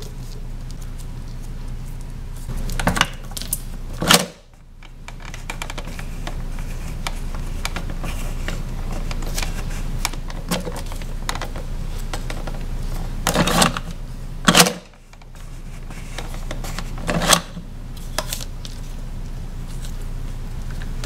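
Plastic Play-Doh Hulk figure being handled: about five sharp plastic knocks and taps, spread out, as it is pressed down onto Play-Doh and lifted off, over a steady low hum.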